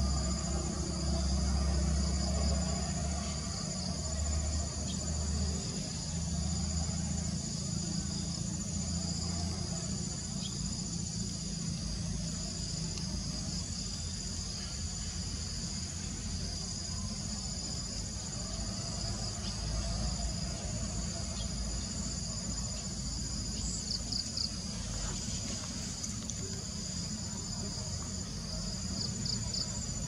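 Steady chorus of insects: a continuous high-pitched trill at two pitches, over a low rumble, with a few short chirps late on.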